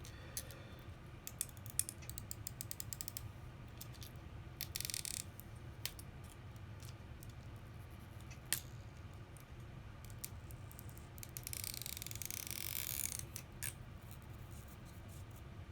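Small, sharp clicks and taps of repair tools on an iPhone SE's open case and internals. Near the end, a few seconds of rasping, squeaking noise, typical of a stretch-release battery adhesive strip being pulled out from under the battery.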